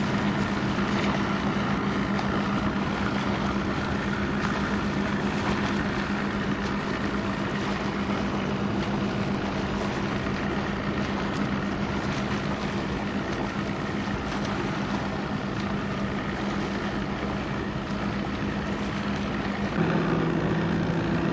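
Motorboat engine running steadily: a low hum under a rushing noise. About 20 s in, the engine note drops a little and grows slightly louder.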